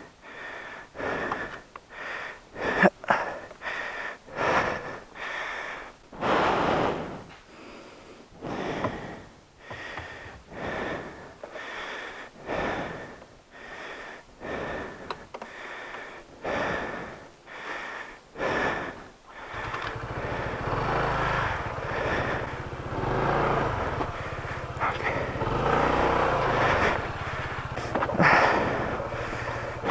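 Heavy, rapid breathing, about one breath a second, from an exhausted rider. About twenty seconds in, a Honda ADV scooter's single-cylinder engine comes on and runs steadily.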